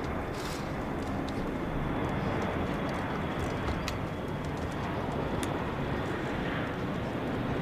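Steady rushing noise with no voices, of even loudness, with a few faint ticks.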